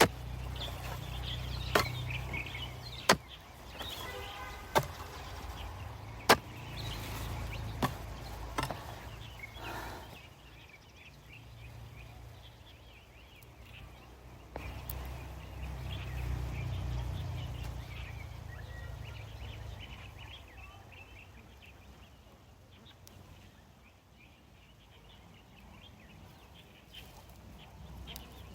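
A hoe chopping into soil, six sharp strikes about every one and a half seconds in the first eight seconds, then fewer and fainter blows over a low rumble.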